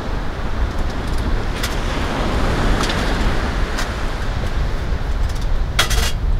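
Steady wind rumbling on the microphone over the wash of the surf, with a few light metallic clinks of camp cookware and tins being handled; the loudest, a ringing clink, comes near the end.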